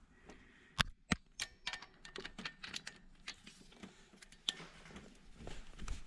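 Ratchet of a small torque wrench clicking irregularly as it is worked back and forth, turning a cylinder-head bolt a further 90 degrees, with two sharper knocks about a second in.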